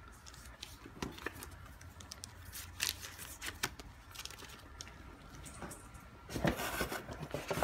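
Rustling and crinkling of a clear plastic sleeve and packed items being handled and set down, with scattered small clicks and a louder rustle near the end.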